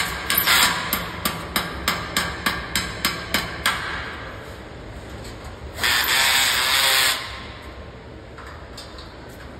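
Hammer blows driving ceiling nails into a concrete ceiling: a run of sharp, even strikes, about three a second, that stop about four seconds in. About six seconds in, a cordless drill runs for about a second.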